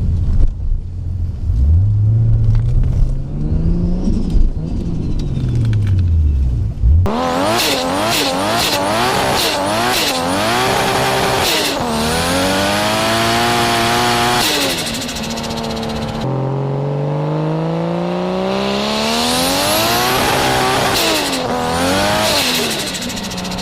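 Turbocharged performance car engines revving hard in several short clips: a slower rise and fall in revs, then quick repeated throttle blips with sharp cracks, then one long climb in revs that falls away again.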